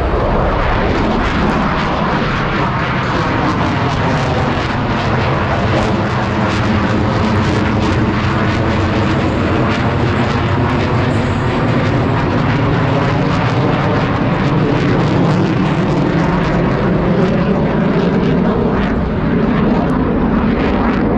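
Loud jet noise from Blue Angels F/A-18 Super Hornets flying over. A falling sweep runs through the noise during the first several seconds, and then the sound holds steady.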